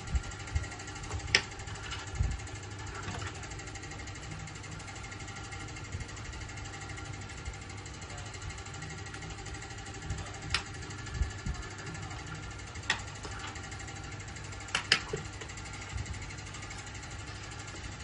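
A few small sharp clicks and ticks of a precision screwdriver, tiny screws and a metal connector shield being handled on an opened iPhone, scattered over a steady background hum; the clearest click comes about a second in and a quick double click near the end.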